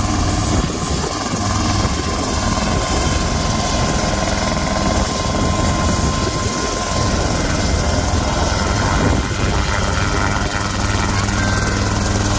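Small homebuilt two-seat helicopter running loud and steady, its engine and main rotor at lift-off power as it rises into a low hover, with a continuous low rotor chop and a steady high whine.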